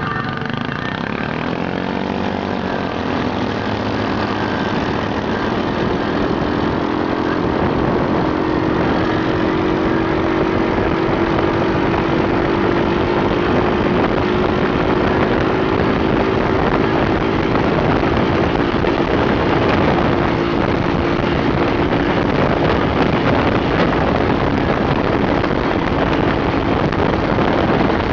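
Off-road buggy engine running as the vehicle pulls away and drives along a gravel road. Its pitch climbs over the first few seconds and then holds steady, under a constant rush of noise.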